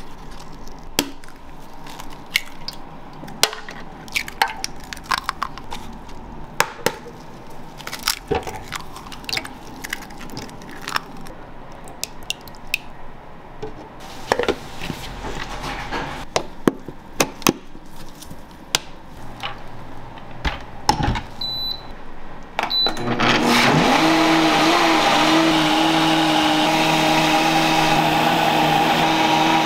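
Eggs being cracked into a plastic blender jar: a run of sharp taps and cracks. Two short beeps from the blender's controls, then the countertop blender motor starts and runs steadily, loud and even, mixing flour and eggs into takoyaki batter for the last several seconds.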